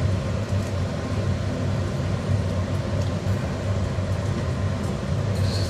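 A steady low mechanical hum, with faint scrapes of a wooden spatula mixing egg in a frying pan.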